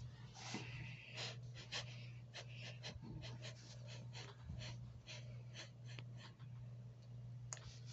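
Faint, short breathy puffs close to the microphone, about three a second and irregular, over a steady low electrical hum.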